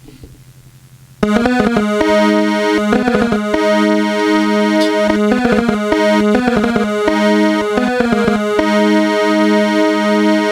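An electronic keyboard comes in suddenly about a second in, playing a melody in held notes over a steady drone.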